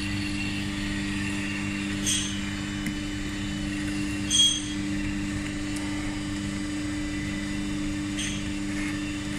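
Steady electrical hum of a self-clinching fastener insertion press's air-over-oil power unit, with three short hisses of compressed air at roughly two- to four-second gaps, the middle one the loudest.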